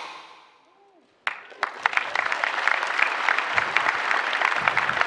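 A large audience applauding, many hands clapping, starting about a second and a half in after the tail of music dies away.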